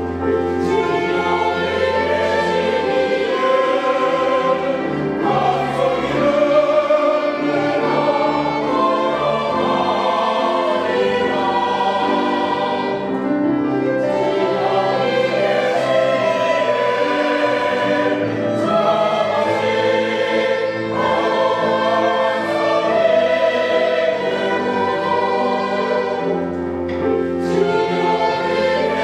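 Small mixed church choir of men's and women's voices singing a praise anthem together, continuous and without pause.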